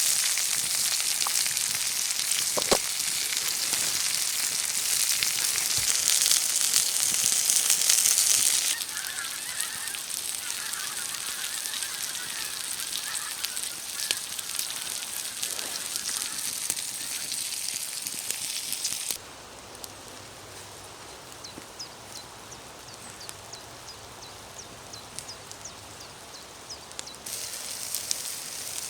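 Eggs and breakfast food sizzling on a hot slate over a wood fire. The sizzle is loud at first, drops abruptly about nine seconds in and again a little past halfway, where small crackles tick through a quieter hiss, then rises again near the end.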